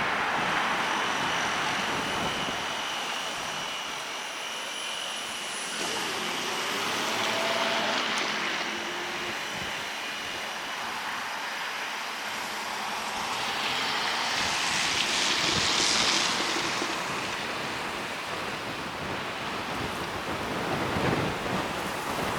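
Road traffic passing by: a steady hiss of vehicles and tyres, swelling twice as cars pass, about a third and three quarters of the way through.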